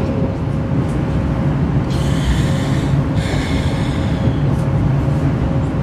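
Train running with a steady low rumble. Two brief hissing sounds come about two and three seconds in.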